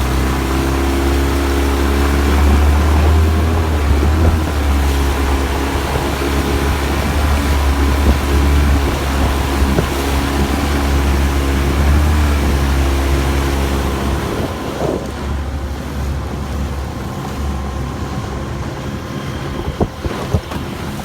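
Mercury 9.9 outboard motor running under way on an inflatable boat, with wind buffeting the microphone and water noise from the hull. About fourteen seconds in the engine note drops away, leaving mainly wind and waves, with a few knocks near the end.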